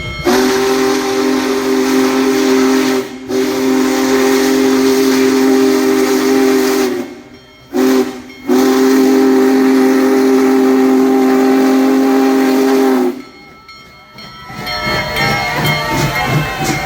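Union Pacific Big Boy steam locomotive's whistle blowing several notes together: a long blast with a brief break about three seconds in, a short toot about eight seconds in, then another long blast that cuts off about thirteen seconds in.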